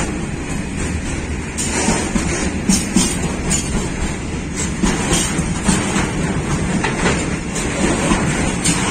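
Freight wagons of a long mine train rolling past close by: a steady low rumble of steel wheels on the rails, with irregular clanks and clicks as the wheels pass over the track.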